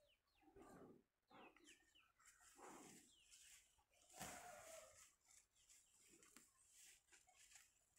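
Milk squirting by hand from a water buffalo's teats into a pail: a series of short hissing squirts about a second apart. Birds chirp faintly in the first couple of seconds.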